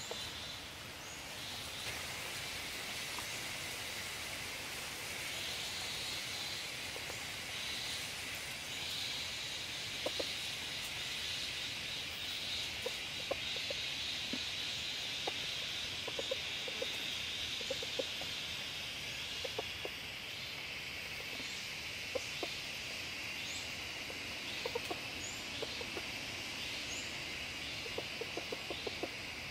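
A chicken clucking in short, scattered notes from about ten seconds in, over a steady high-pitched drone of forest insects.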